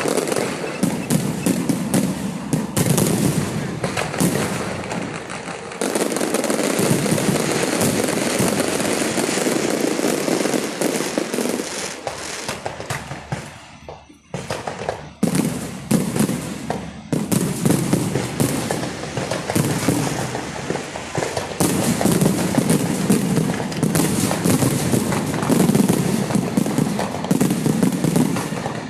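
Firecracker barrages and aerial fireworks going off, a dense, nearly unbroken crackle of rapid bangs, with a brief lull about halfway through before the explosions pick up again.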